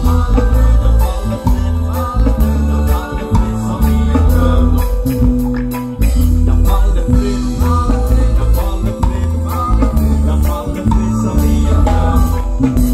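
Reggae band playing live: a heavy, repeating bass line under drum kit, guitar and keyboard.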